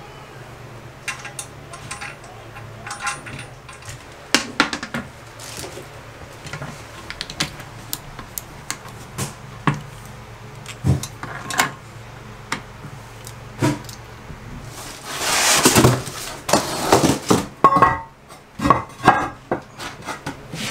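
Small plastic toilet-seat bolts, washers and porcelain parts being handled: scattered clicks and clinks. About fifteen seconds in comes a louder rushing noise lasting a second or so, then a quick run of knocks and clatters.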